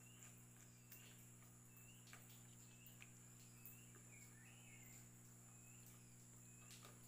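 Near silence: faint outdoor background with a soft high chirp every second or so and a few faint clicks.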